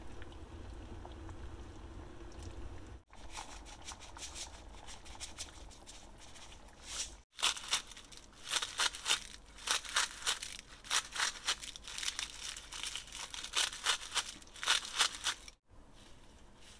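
Kitchen scissors snipping a sheet of dried laver (gim): a quick run of crisp, crackly cuts, about two a second, over several seconds.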